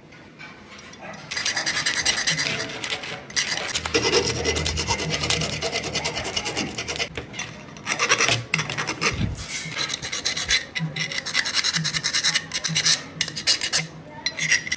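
Irregular scraping and rubbing of a square steel tube piece being handled and slid over a wooden board, with a few knocks near the middle.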